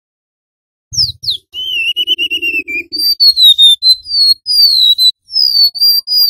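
Golden-bellied gerygone (remetuk laut) singing: about a second in, a fast run of high, thin, whistled notes begins, most of them gliding downward. A lower, wavering trilled note sits near the start of the run.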